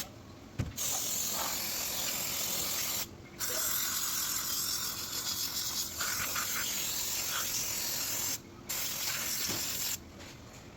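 Aerosol cleaner sprayed in three long hissing bursts, about two and a half, five and one and a half seconds long with short breaks, stopping about ten seconds in: throttle-body cleaner being used on a dirty throttle body.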